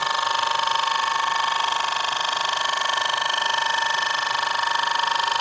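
Power cutting machine running steadily with a high, multi-pitched whine and a fast, even pulsing as its cutter takes wood off a door jamb clamped in a vise.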